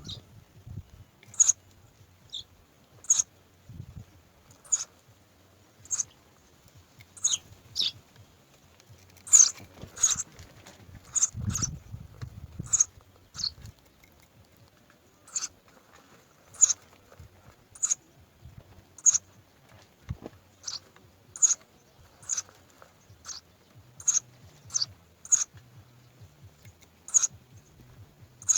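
Birds chirping: short, high-pitched single chirps repeated about once a second, with a brief rustle of movement near the middle.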